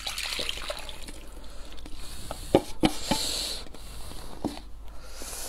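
Spicy noodle broth and wide noodles sliding and splashing from a paper cup into a glass bowl, with a few sharp clicks from chopsticks against the cup and bowl about two and a half seconds in.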